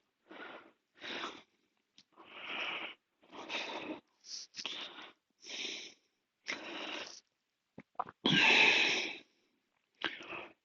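A man breathing hard during bodyweight exercise: a series of forceful breaths, roughly one a second, the loudest and longest about eight and a half seconds in.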